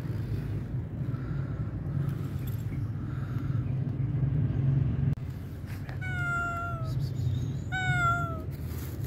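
Domestic tabby-and-white cat meowing twice, two drawn-out calls about a second apart, each sliding slightly down in pitch, over a steady low rumble.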